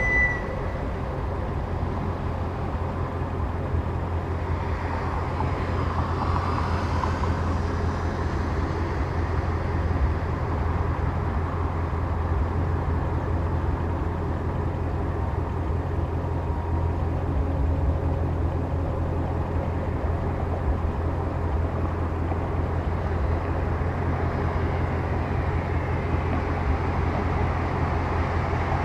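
A 2016 Ford Mustang GT350's 5.2-litre flat-plane-crank V8 exhaust drones steadily at an even cruising speed, with a deep, low hum throughout.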